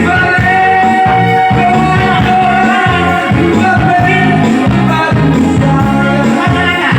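Loud song playback with a singing voice holding long notes over a steady pulsing bass beat, played through a sound system being sound-checked.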